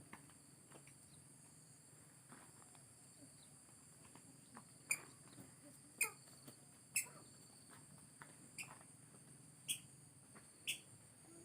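Faint, steady high-pitched insect drone, with a few sharp clicks about a second apart in the second half.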